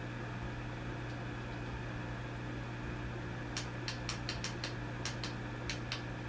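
Vintage tube amplifier idling with a steady mains hum under a layer of hiss. From just past halfway, a quick run of about a dozen short crackles rides over it.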